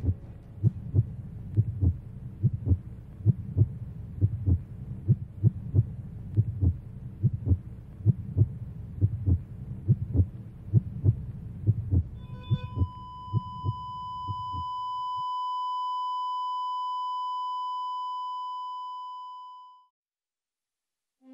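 Heartbeat sound effect, regular low thumps that fade out about fifteen seconds in. About twelve seconds in, a long steady electronic beep like a heart monitor's flatline comes in over it. It holds for about eight seconds and then cuts off suddenly.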